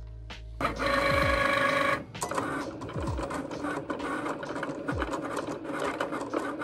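Cricut cutting machine cutting out a sheet of printed stickers: its motors whir in short, uneven moves as the blade carriage and mat rollers trace the shapes. The whir starts loud about half a second in and eases after a second or so into a busier stuttering.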